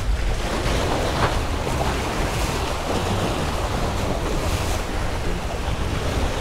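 Small surf waves washing over and splashing against granite jetty rocks, with wind buffeting the microphone as a steady low rumble.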